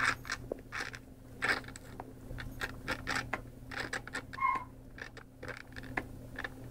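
Irregular rubbing, scraping and soft clicks as a newborn puppy is rubbed in a towel and handled, with one brief squeak about four and a half seconds in, over a steady low hum.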